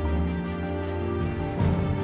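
Background music: sustained chords held over a low bass note, with faint ticks about every half second and a chord change about one and a half seconds in.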